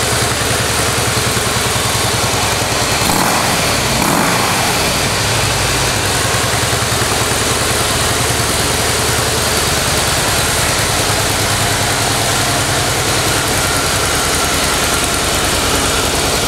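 2015 Harley-Davidson Softail Breakout's air-cooled Twin Cam 103 V-twin running at idle through its factory exhaust, a steady even loping beat. It is briefly a little louder about three and four seconds in.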